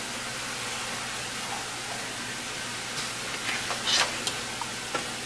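Steady background hiss of room tone, with a few light clicks and taps about three to four seconds in from handling a small electric spice grinder.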